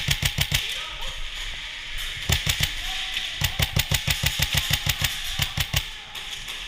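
Airsoft rifle firing rapid strings of shots, about eight to ten a second, each a sharp crack with a thud beneath. There is a string at the start, a short one a little past two seconds in, and a longer one from about three and a half to nearly six seconds in, over a steady hiss.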